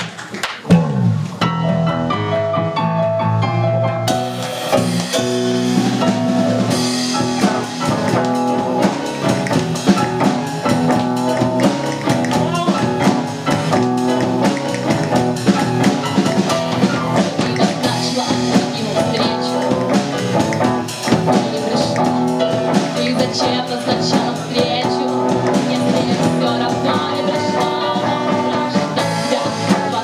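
Small live band starting a song: electric bass, keyboard and guitar, with drums joining about four seconds in.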